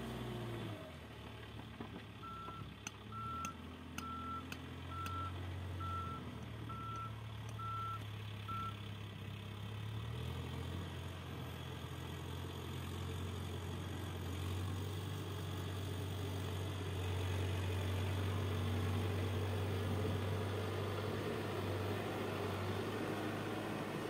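CASE backhoe loader's diesel engine running, with its reversing alarm beeping eight times, about one beep a second, over the first third; the engine then grows louder and runs steadily.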